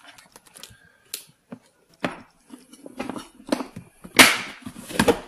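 Hard plastic revolver case being closed and handled: a run of plastic clicks and knocks, sparse at first and heavier later, with two loud knocks near the end.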